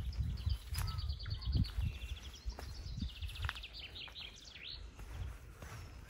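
A songbird singing a long, varied song of rapid trills and repeated notes, stopping about a second before the end. Under it there is a low rumble with soft thumps, loudest in the first two seconds.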